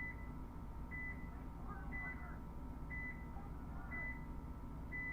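Electronic countdown timer giving short, high beeps about once a second, counting down the last seconds before a paintball point starts.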